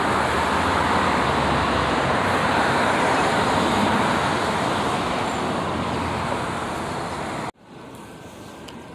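Steady rushing noise, even and without any pitch, that cuts off abruptly about seven and a half seconds in, leaving a much quieter background.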